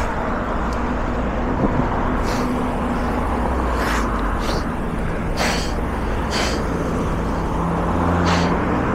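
Wind and road noise rushing over a body-worn camera's microphone during a mountain-bike ride, with a passing burst of hiss now and then and a motor vehicle's engine running steadily near the end.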